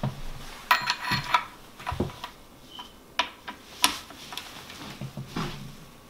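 Ratchet wrench clicking on a sprocket bolt: a quick run of sharp metallic clicks about a second in, then single clicks and knocks of the tool against the engine.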